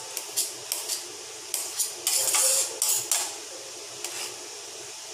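Kitchen knife cutting ridge gourd on a stainless steel cutting board: irregular sharp taps of the blade striking the steel, with a longer slicing stroke about two seconds in.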